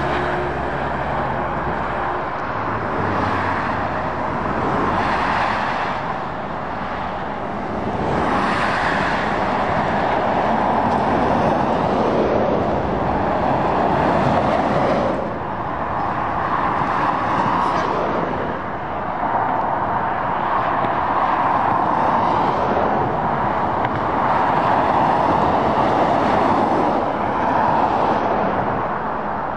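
Lorries and cars passing on a dual carriageway: tyre and engine noise swells and fades as each vehicle goes by. The noise drops suddenly about halfway through.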